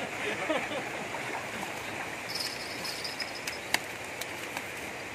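Shallow stream water running steadily, with a few sharp clicks as hands work in the water.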